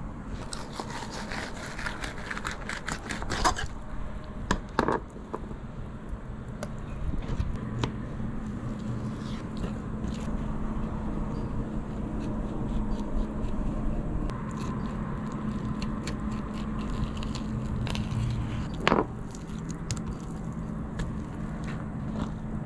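Fillet knife scraping and slicing on a plastic cutting board as a rainbow runner is filleted and skinned, with a few sharp knocks, the loudest about three quarters of the way in. A steady low hum runs underneath.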